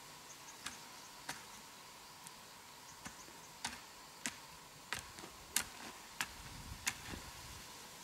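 A run of sharp, irregular clicks and snaps, about a dozen, coming closer together in the second half.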